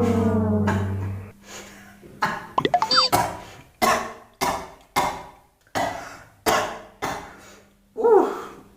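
A person coughing hard in a run of about eight sharp, separate coughs, roughly one every two-thirds of a second: a choking cough after a biscuit has gone down the wrong way. A held brass music note fades out in the first second or so.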